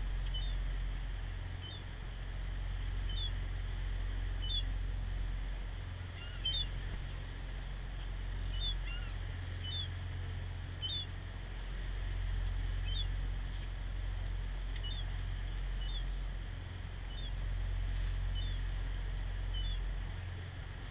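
Gulls calling over the boat, short high calls coming about once a second, over a steady low rumble from the boat and wind.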